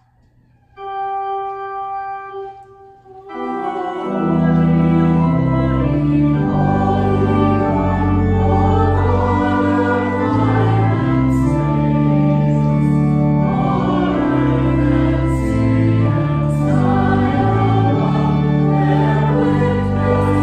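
Church organ playing. It starts with a single held note about a second in, and full sustained chords over a deep pedal bass come in from about three seconds in. Voices appear to be singing along, most likely the congregation's sung response in the communion liturgy.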